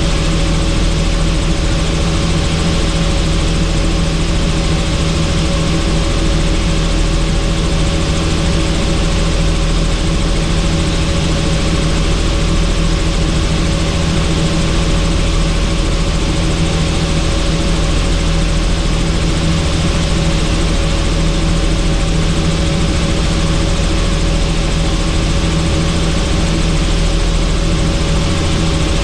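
Helicopter in flight: a loud, steady drone of engine and rotor noise, with a few held tones under a constant rushing noise.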